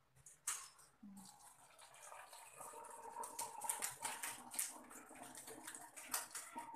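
Warm water poured from a plastic jug into a plastic bottle, running steadily in a continuous stream. A light knock sounds about half a second in.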